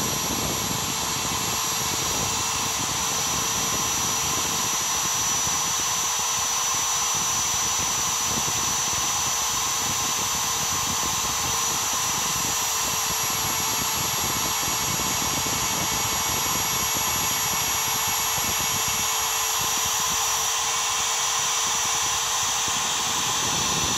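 A DeWalt router spindle spins a two-flute upcut end mill on a Mostly Printed CNC as it takes a light finishing pass in steel. It makes a steady high whine over a constant cutting hiss.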